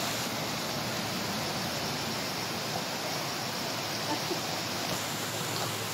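Shallow stream water rushing steadily over a low concrete weir and rocks.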